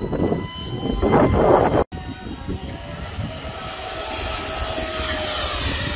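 Gusty rushing noise for about two seconds, then a radio-controlled model airplane's motor and propeller whining and rising steadily in pitch as it throttles up.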